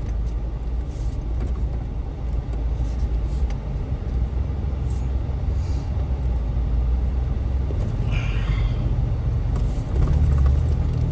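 Off-road Jeep's engine running at low speed on a slow descent, a steady low rumble mixed with wind buffeting the microphone, swelling a little near the end.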